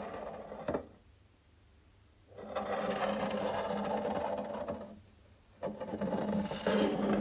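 A small motor running in three spells of one to two and a half seconds, each a steady hum with a rasping buzz over it, and one short click about 0.7 seconds in.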